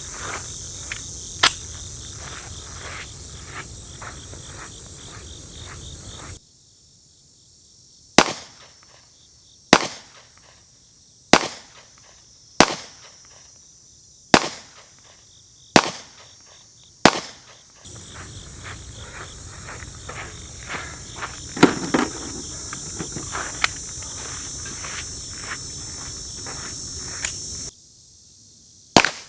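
Handgun shots: seven single shots about one and a half seconds apart in the middle, and one more near the end, between stretches of steady insect chirring with footsteps.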